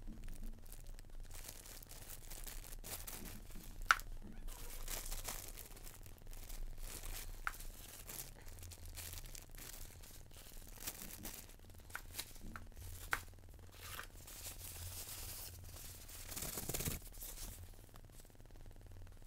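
Plastic packaging bags crinkling and rustling as small parts are unwrapped and handled, with a few sharp clicks, the loudest about four seconds in.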